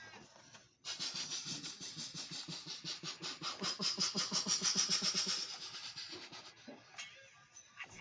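Mitsubishi T120SS pickup's engine making a fast, even pulsing of about seven beats a second, which starts just under a second in and drops away near the end.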